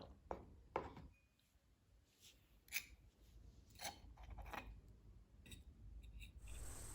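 Faint handling noises: about six short, separate rubs and soft clicks, with a guitar tune starting at the very end.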